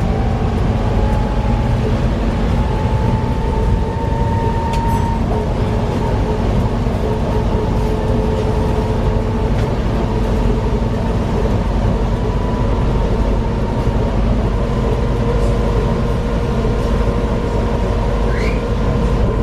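Volvo B7TL double-decker bus on the move: its six-cylinder diesel and drivetrain give a steady low rumble with a faint whine that slowly drifts up and down in pitch. The uploader puts the bus's noises down to a bad differential.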